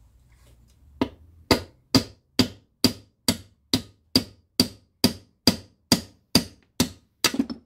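Hammer tapping steadily on a bearing in a cast milling-machine head to knock it free: about fifteen evenly spaced blows, a little over two a second, starting about a second in.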